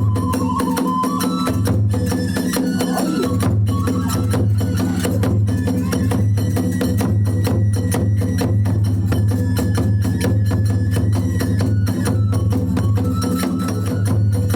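Kagura hayashi accompaniment playing: fast, dense strikes of drums and clashing tebyoshi hand cymbals, with a thin melody of held notes over them.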